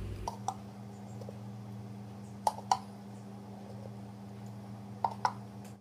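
A metal spoon clicking and tapping against the ghee jar and pan as ghee is spooned in: a few sharp light taps, mostly in pairs, over a steady low hum.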